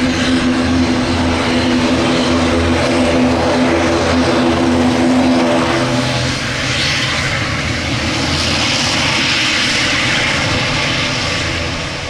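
ATR 72-600 turboprop taxiing past with its two Pratt & Whitney PW127M engines turning the propellers at low power. A steady, multi-toned propeller hum gives way about halfway through to a hissing turbine whine as the aircraft passes and turns away, then fades a little near the end.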